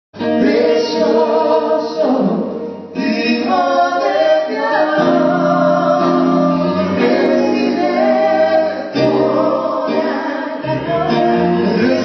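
Music with several voices singing together, starting abruptly at the very beginning.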